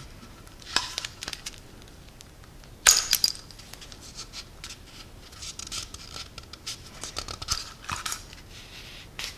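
Strips of insulating tape being peeled and pressed onto the edges of an aluminium e-bike controller case, with scratchy rustling and a few sharp clicks; the loudest is a sharp crackle about three seconds in.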